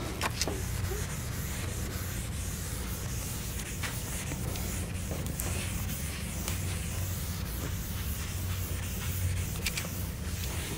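Chalkboard eraser rubbing across a blackboard, wiping off chalk writing, with a few light knocks against the board, over a steady low room hum.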